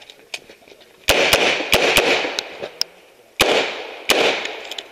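Revolver firing six shots during a practical shooting stage: two quick pairs about a second in, then two single shots a little later, each with a ringing tail.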